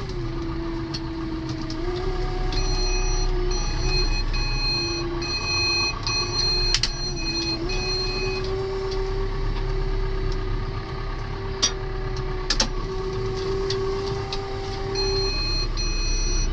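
John Deere tractor engine running steadily, its pitch stepping up a little twice. A repeating electronic beep sounds over it for several seconds, stops, and starts again near the end, with a few sharp clicks in between.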